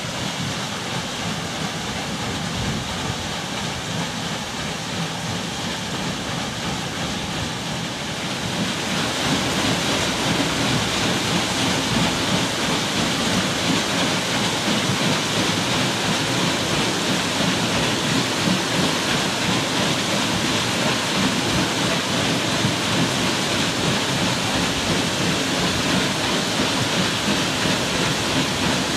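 Water rushing and splashing at a watermill's turning water wheel on its mill stream, a steady churning noise that grows louder about eight seconds in.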